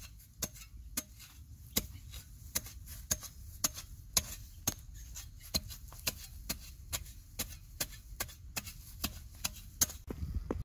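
A long-handled, flat-bladed digging bar striking hard, dry soil over and over, about two sharp blows a second.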